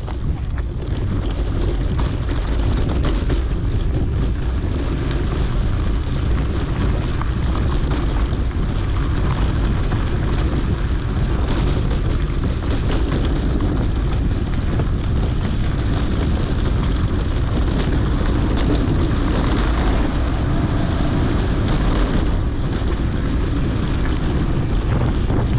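Steady rumble of a mountain bike rolling over a dirt trail, with wind buffeting the GoPro microphone and faint scattered rattles.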